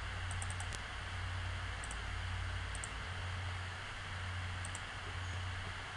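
Faint computer mouse clicks, a quick cluster shortly after the start and then single pairs of ticks every second or two, over a steady microphone hiss and low hum.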